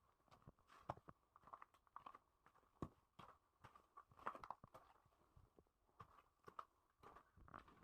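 Faint footsteps, irregular steps of someone walking, about one or two a second.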